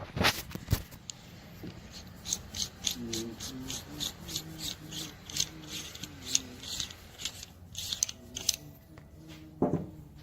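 Hand filing of a fiberglass hood cutout: a run of short, even rasping strokes, about three a second, opening up the hole to fit a hood latch, with a few knocks near the start and end.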